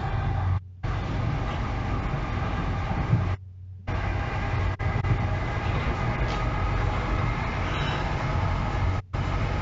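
Passenger train running at speed, heard from inside the carriage as a steady rumble. The recording cuts out completely three times: briefly just under a second in, for about half a second around three and a half seconds in, and briefly again near the end. These cuts are typical of the recording phone's failing microphone.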